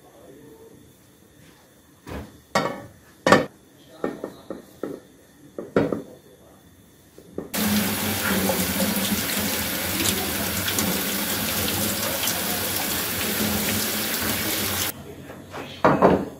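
Kitchen tap running full into a stainless steel sink while a ceramic bowl is rinsed under it, starting and stopping abruptly about halfway through. Before it come a few light knocks and clinks of a plate being handled on a bowl, and near the end a single clink of crockery set down.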